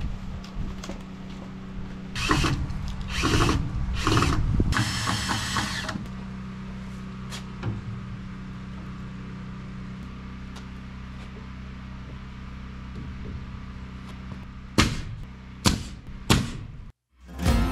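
Power-tool work during wall framing: four short bursts in the first six seconds, the last about a second long. Near the end come three sharp strikes, all over a steady low hum.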